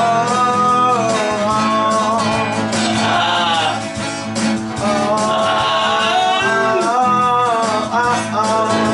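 A voice singing a song with instrumental accompaniment.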